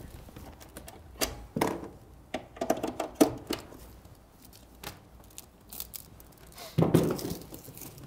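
Handling noise of a mains plug and cable being fitted into a wall outlet: irregular clicks, knocks and rustling, with a heavier knock about seven seconds in.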